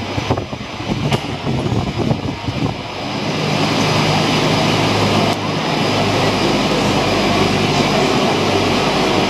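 Hakone Ropeway station machinery running as the gondola cabins roll through the terminal on the overhead wheels and track: a steady mechanical drone. It becomes louder and steadier about three seconds in, with a low hum.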